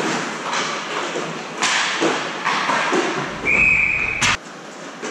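Roller hockey play: sharp knocks of sticks and puck, echoing in a large hall, about five of them over the first three seconds. A steady high tone lasts just under a second, starting about three and a half seconds in and ending in a sharp knock.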